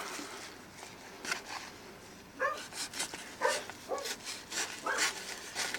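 A dog barking: four short barks, starting about two and a half seconds in.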